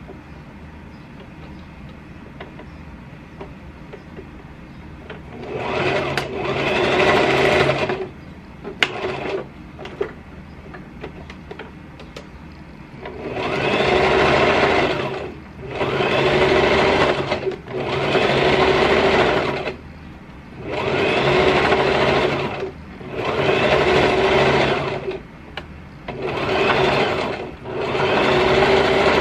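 Electric household sewing machine stitching fabric in short runs of about two seconds, stopping and starting again about seven times. Before the first run there are about five quiet seconds, and a couple of light clicks come in a pause between the first and second runs.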